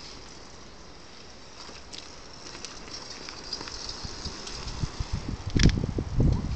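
Faint, even outdoor hiss, then from about five seconds in loud, irregular low rumbling on the microphone, with a sharp knock about five and a half seconds in.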